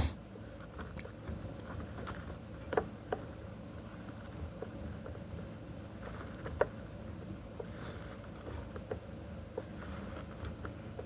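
Stripped speaker wires being twisted together by hand: light, scattered clicks and rustles, the sharpest about three seconds in and again past six seconds, over a faint steady hum.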